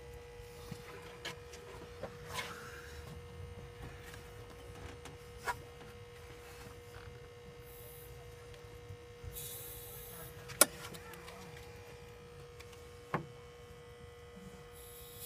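Compressed air being fed into a cylinder of a 4G63 engine held at top dead centre, a faint steady hiss and hum as the air escapes through the intake side, which the owner takes for a sign of bent valves. Scattered sharp clicks, the loudest about ten and a half seconds in.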